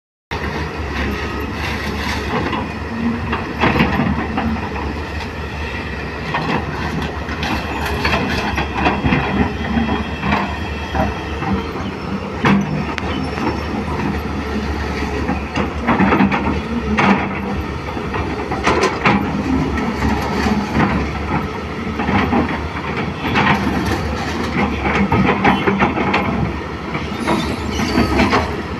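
LiuGong excavator's diesel engine running steadily under load, with repeated metal clanks and scrapes from the bucket working the steel truck bed as it unloads the truck.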